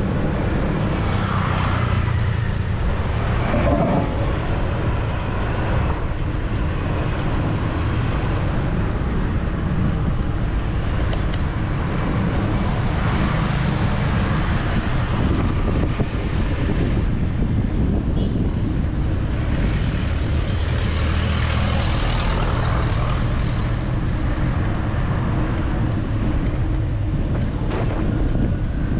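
Steady, loud city road traffic heard from a moving bicycle, with vehicles passing close by, their engines and tyres swelling and fading as they go past.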